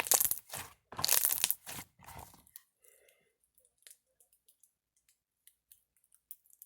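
Slime being squished and pulled by hand: three loud, noisy squelches within the first two and a half seconds, then faint small clicks and pops.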